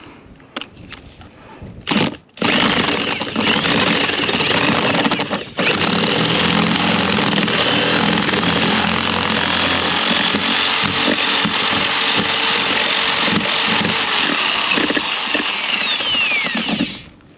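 Cordless drill spinning a bent Allen key inside a drilled hole in a fiberglass hardtop, the key scraping out the honeycomb core to make room for a nut. After a short burst about two seconds in it runs steadily, breaks off briefly, then runs on until it stops near the end with a falling whine.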